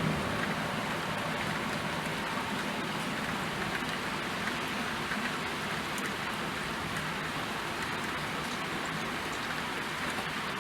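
Steady rain falling, an even hiss with scattered drop ticks hitting a surface.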